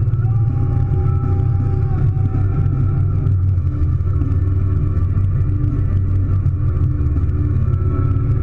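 Scarab powerboat's engine running steadily at low cruising speed, a deep even rumble. A thin high tone sounds briefly about a second in.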